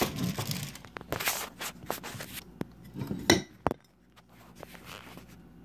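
Kitchen clatter: a quick series of sharp clicks, clinks and knocks from objects being handled, which stops about four seconds in, leaving only a faint low hum.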